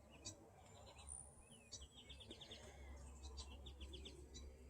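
Faint bird chatter: several quick runs of short, evenly spaced chirps, over a steady low hum.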